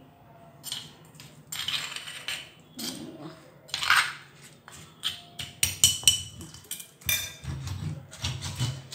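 A metal spoon scraping and clinking against a stone mortar as it stirs coarse, wet chutney paste. About seven seconds in, the stone pestle starts pounding and grinding in the mortar with repeated dull thuds.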